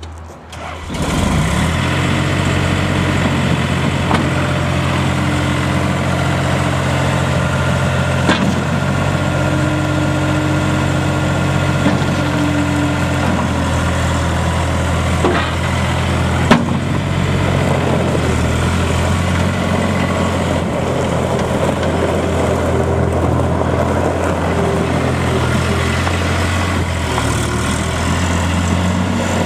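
New Holland LS180.B skid steer loader's diesel engine running steadily, with a few sharp knocks over it, the loudest about sixteen seconds in.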